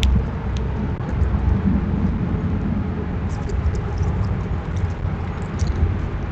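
A steady low outdoor rumble, with a few faint short high ticks in the second half.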